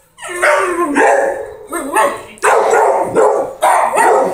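Beagle-type dog barking repeatedly: about six loud barks in quick succession, some of them drawn out.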